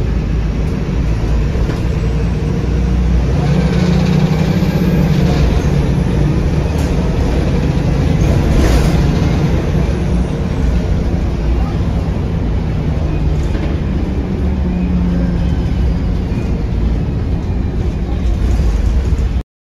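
VDL SB200 single-deck bus engine, heard from inside the saloon while the bus is driving: a steady low drone with occasional clicks and rattles. The engine note swells a few seconds in and again near the end, and the sound cuts off abruptly at the very end.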